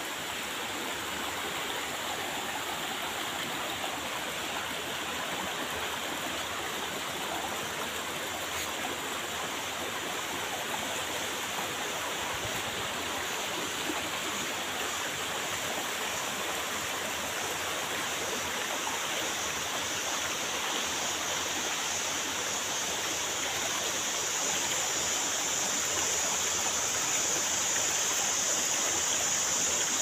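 Steady rush of a shallow, rocky stream flowing over stones, growing a little louder near the end.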